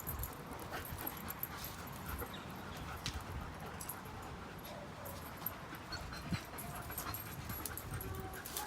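A dog whimpering faintly, with scattered light clicks and rustles.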